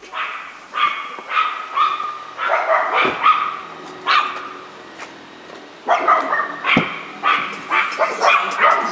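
A dog barking repeatedly in short, sharp barks, two or three a second, with a pause of about a second and a half midway.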